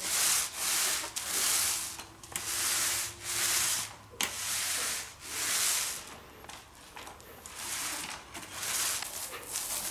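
Paint roller on an extension pole rolling wet black porch-and-floor enamel over rough concrete: a rasping rub with each back-and-forth stroke, about one stroke a second, easing off for a moment a little past the middle.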